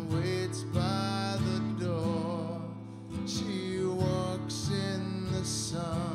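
A man singing held, wavering notes into a close microphone over a strummed acoustic guitar, with a few hissing 's' sounds in the words.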